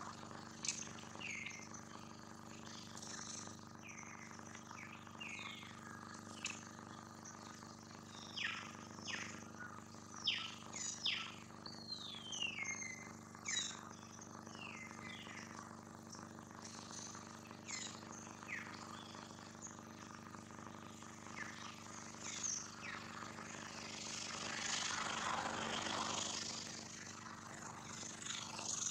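Birds chirping outdoors: many short, high calls that fall in pitch, coming thickest in the middle. Near the end a rushing noise swells and fades, over a steady low hum.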